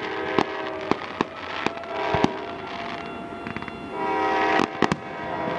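Fireworks going off in a rapid string of sharp bangs and pops, with a steady multi-note horn chord sounding in several blasts between them.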